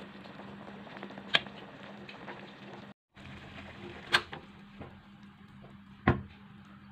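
Chicken pieces boiling in an aluminium pot under a steady low hum, with a metal spoon knocking against the pot as the pieces are turned. Three sharp knocks stand out, about a second and a half in, past four seconds and near six seconds, and the sound cuts out briefly about three seconds in.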